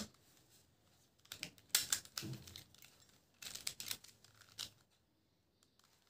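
Plastic clicking of a triangular twisty puzzle's layers being turned by hand, in two quick flurries of turns. The clicking is faint.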